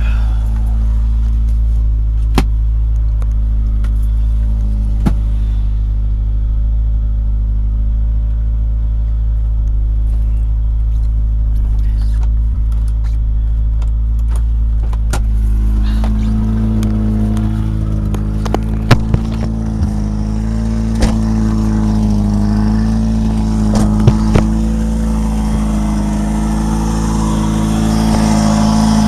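Honda Prelude engine running with a bad exhaust leak, steady at first with a few sharp clicks, then its speed rising and falling from about halfway and climbing near the end.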